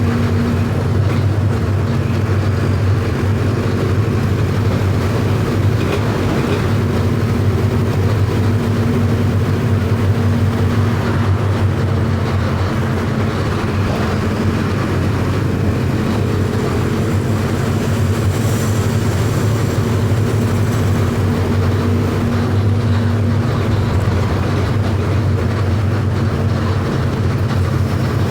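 Mercedes-Benz OF 1519 bus's four-cylinder electronic diesel engine running as the bus drives, a steady low drone.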